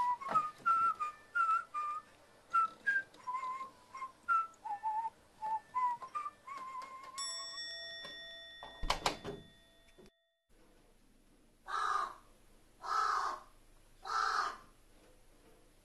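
A carrion crow caws three times, each call under a second long and about a second apart. Before it, a whistled tune with light clicks plays for about seven seconds, followed by a chime and a whoosh.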